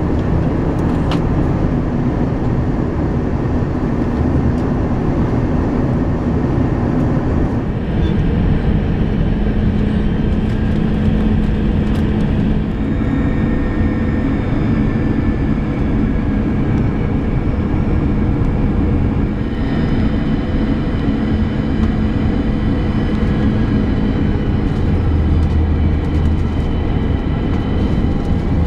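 Cabin noise of an Airbus A321 on final approach, heard from a window seat by the wing: a steady rush of airflow and jet engine noise. Faint engine tones come in or change pitch a few times as thrust is adjusted, and a deeper rumble builds near the end.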